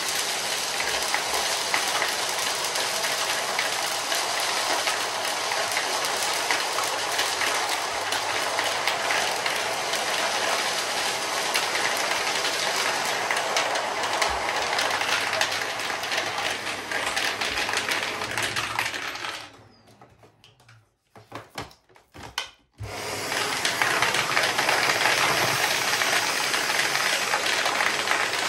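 Vacuum cleaner running with a steady motor and airflow noise. About twenty seconds in it is switched off and winds down with a falling tone, there are a few clicks, and it starts up again about three seconds later.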